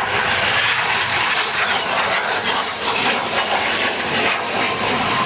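Harrier jump jet's Rolls-Royce Pegasus turbofan: loud, steady jet noise from the aircraft in flight.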